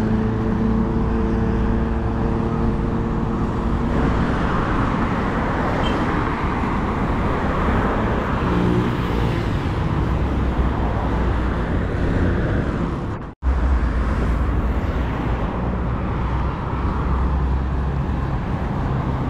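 Road traffic noise, a steady rush of passing vehicles. A vehicle engine drones at a steady pitch over the first few seconds. The sound cuts out for an instant about thirteen seconds in.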